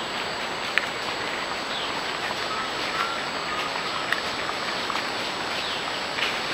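Collared peccaries rooting in dry leaf litter: a few sharp crackles and clicks, the loudest a bit under a second in and about four seconds in, over a steady hiss and a thin constant high whine.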